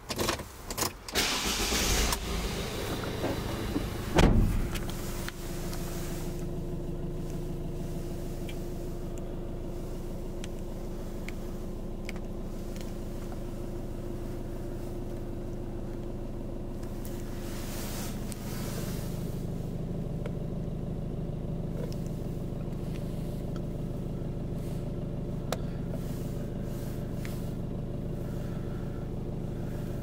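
Ford Transit van's engine being started, then idling steadily, heard from inside the cab. A sharp loud thud about four seconds in, just before the idle settles.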